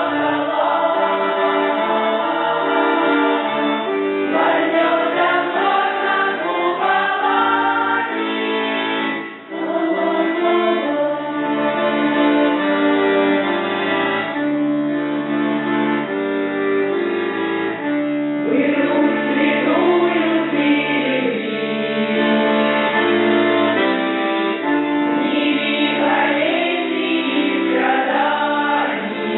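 Russian folk choir singing, with held, wavering notes over a steady low part. The sound dips briefly about nine seconds in.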